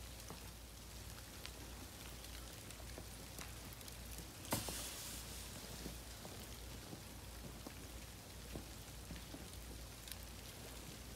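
Faint, soft crunching and ticking of snow as a Shiba Inu noses and paws in it, with one louder crunch about four and a half seconds in.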